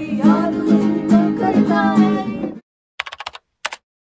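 Acoustic guitar chords with a voice singing over them, cutting off suddenly about two and a half seconds in. After a short silence comes a quick run of typing-like clicks, then one more click.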